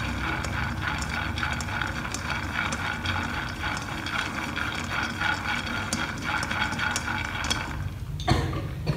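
Peanuts being stirred with chopsticks in a dry wok over a low gas flame, rattling and scraping against the pan as a dense run of small clicks. The stirring stops shortly before the end, with one sharp click.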